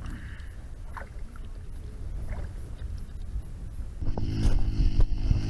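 Low rumbling wind noise on an action-camera microphone. About four seconds in it gives way to a louder, steady buzzing hum with many overtones and a few sharp clicks.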